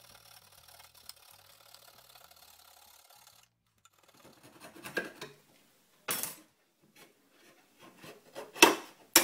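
Faint background music that stops about three seconds in, then several separate rasping strokes of a small metal tool scraping the hard plastic case of a glow plug controller as it is worked open. The loudest strokes come near the end.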